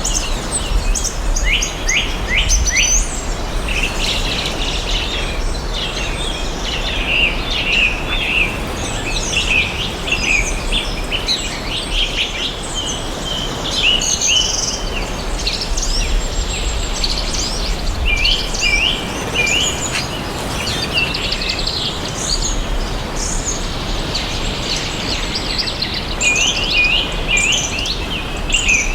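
A chorus of songbirds chirping and singing at once, with many short, quick notes overlapping throughout, over a steady background hiss.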